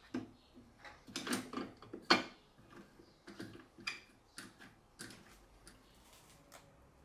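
Irregular clicks and knocks of a small metal machine vise and tooling being handled and positioned on a drill-press table. The loudest cluster comes about one to two seconds in, with scattered lighter clicks after.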